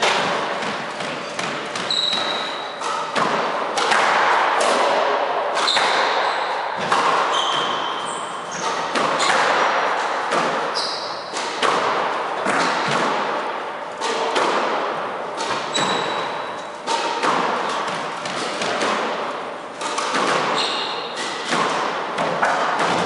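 Squash rally: the ball cracking off racquets and the court walls in quick succession, each hit echoing around the court, with short high squeaks of shoes on the wooden floor between hits.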